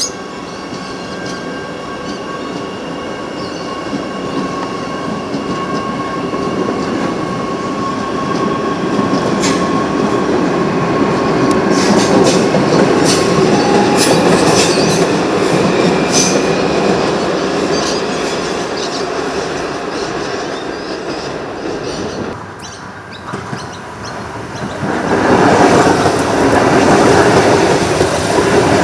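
Adelaide Metro 4000-class electric multiple unit running through the station. A steady high whine and running noise build up, with scattered clicks of wheels over rail joints about halfway through. Near the end, a train passes close by with loud wheel and rail noise.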